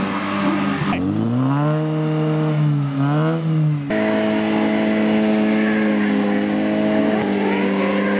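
Car engine pulling under load, its revs rising and falling, with abrupt changes about a second in and near four seconds, then running at a steadier high pitch.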